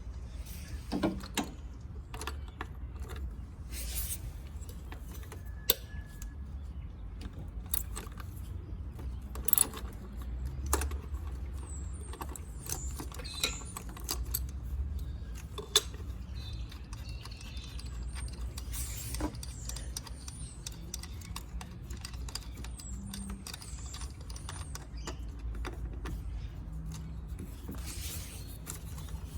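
Scattered metallic clicks and clinks of hand tools and parts at irregular intervals as an ignition coil is unbolted and worked out of an Alloytec V6's engine bay, with the engine off.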